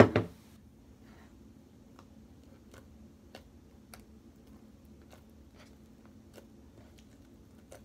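One loud knock right at the start, then hands kneading sticky slime mixed with shaving cream, giving faint, irregular sticky clicks.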